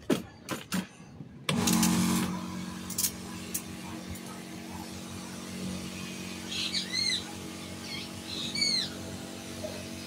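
Watering a potted plant: a steady hiss of spraying water with a low hum underneath, starting suddenly about a second and a half in after a few light clicks. A bird chirps twice near the end.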